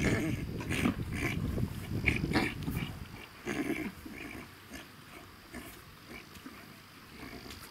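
A Thoroughbred horse snuffling and blowing through its nostrils close to the microphone. It is loudest over the first three seconds, with one more short blow about three and a half seconds in.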